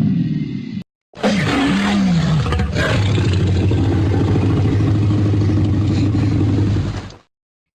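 1930s rubber-hose cartoon dinosaur roar sound effect: the tail of one effect cuts off about a second in, then after a brief gap a single long roar of about six seconds, its pitch swooping down and back up at first, then holding low and steady until it stops shortly before the end.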